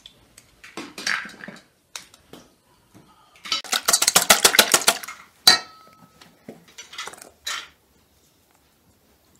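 Eggs being beaten by hand with a wire balloon whisk in a stainless steel bowl: a quick run of clinking strokes, about eight a second, lasting under two seconds, then one sharp tap on the bowl that rings briefly. Softer knocks and taps around it, with cracking of eggs and handling of the bowl.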